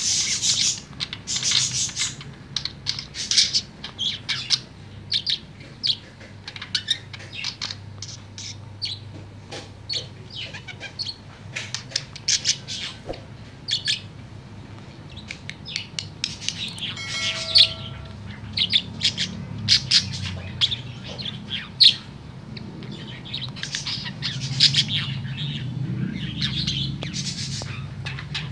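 Budgerigar warbling: a fast, unbroken string of short chirps, clicks and squeaks, with one brief held note a little past halfway.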